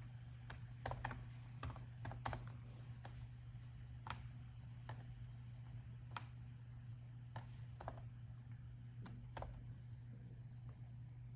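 Typing on a laptop keyboard: a quick run of key clicks in the first couple of seconds, then single keystrokes spaced out, over a steady low hum.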